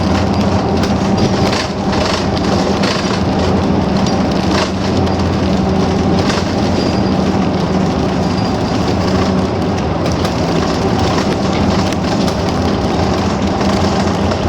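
BRT bus running along the road, heard from inside the cabin: a steady engine hum with tyre and road noise and occasional brief knocks.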